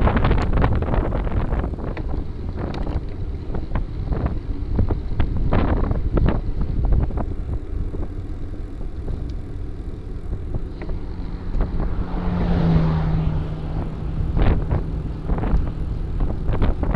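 Wind buffeting the microphone of a bicycle-mounted camera while riding on pavement, an uneven rumble with scattered knocks and rattles from the bike going over the road. A steady low hum comes in for about three seconds a little past the middle.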